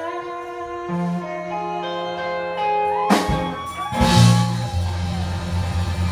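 A live rock band in a room: electric guitar holding and changing sustained notes, then the full band comes in with bass and drums about four seconds in.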